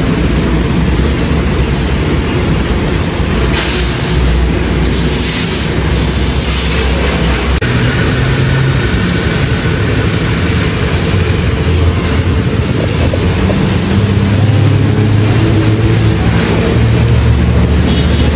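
Pressure washer spraying a car: the hiss of the high-pressure water jet over the steady low hum of the pump.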